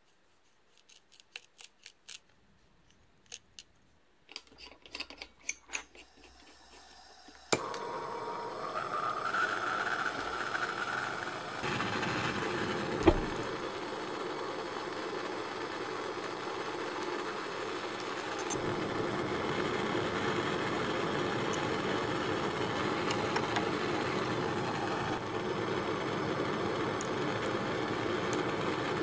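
A few light clicks from glassworking, then a gas glassworking torch lit about seven seconds in and burning with a steady hiss, with one sharp click partway through. The torch is heating a piece of glass to crack off the scored end of a tube stem.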